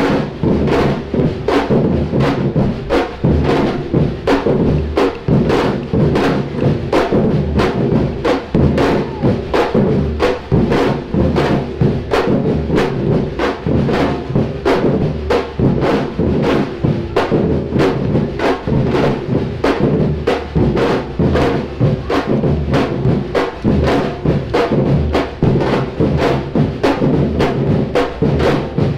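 Samba-reggae drum ensemble of bass drums and snare drums playing live, a loud, steady, unbroken rhythm of sharp strokes over deep bass-drum beats.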